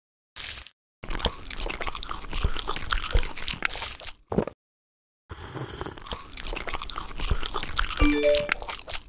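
Dense, crunchy rattling of a wooden spoon stirring and scooping through a dish of small magnetic balls, in two stretches with a pause of about a second between them. Near the end a short blip of three rising notes sounds.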